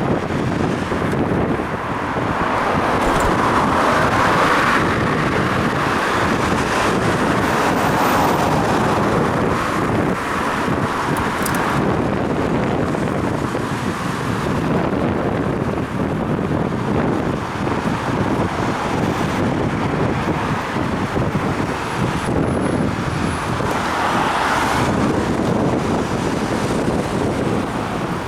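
Wind rushing over a helmet-mounted action camera's microphone while cycling, mixed with road traffic noise. The noise swells about four seconds in and again near the end, as vehicles pass.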